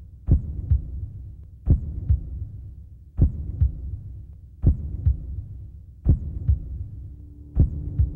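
Slow heartbeat sound effect: a deep double thump, a strong beat followed by a softer one, repeating about every second and a half over a low rumble.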